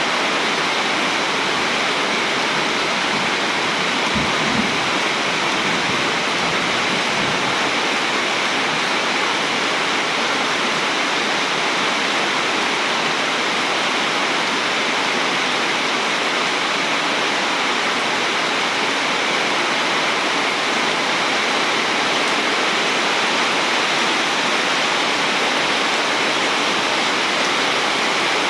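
Heavy rain pouring down in a steady, dense hiss. A brief low rumble sounds about four seconds in.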